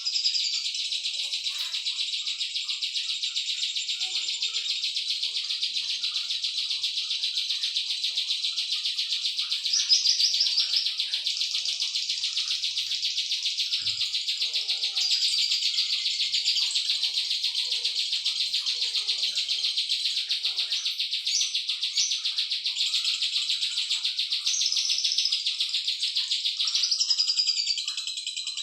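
Cisaw songbird singing a long, unbroken run of rapid high chirps and trills, with a louder phrase about ten seconds in and another near the end.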